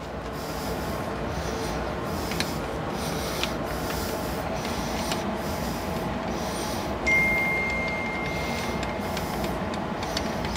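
A few light metallic clicks from a Powerglide transmission's park and manual-valve linkage being worked by hand, over a steady shop background noise. A thin, high ringing tone sounds for about two seconds around seven seconds in.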